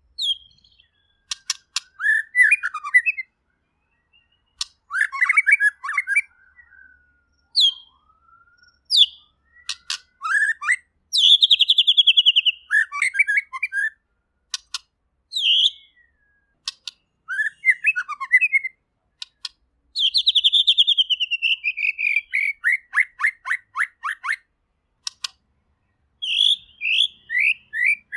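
White-rumped shama (murai batu) singing a varied, clear song in short phrases: quick whistled notes, sharp clicks, and fast rattling trills. The two longest trills fall steadily in pitch, one near the middle and one about two-thirds through.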